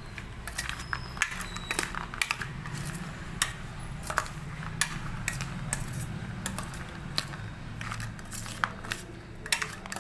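Steel spoon stirring a chopped vegetable salad in a stainless steel bowl, clinking and scraping against the metal at an irregular pace, over a low steady hum.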